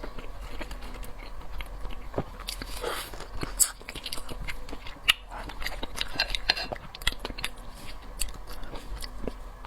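Close-up sounds of someone biting and chewing seafood: many small irregular clicks and smacks, with a short hissing smear about three seconds in.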